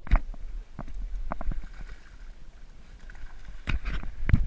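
Wind rumbling on the microphone and water lapping against a small boat's hull, with scattered knocks. Near the end a hooked fish splashes at the surface beside the boat.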